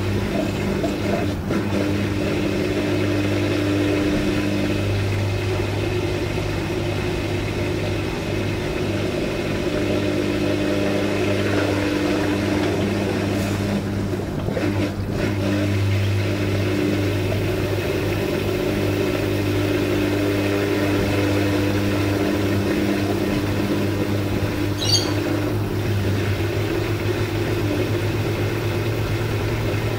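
Washing machine running, its motor giving a steady low hum with a fainter higher tone over it, and a short high tick about 25 seconds in.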